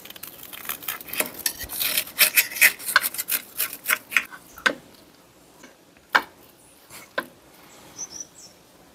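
Serrated knife sawing through the crisp, charred skin of a pan-fried chicken thigh: a dense run of crunchy scraping and crackling for about five seconds, then a few separate sharp clicks.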